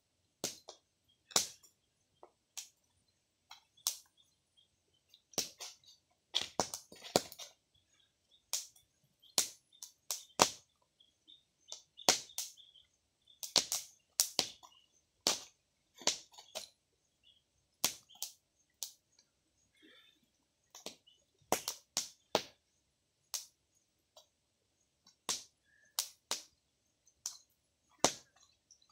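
Open wood fire crackling as corn roasts on it: sharp, irregular pops and snaps, one or two a second.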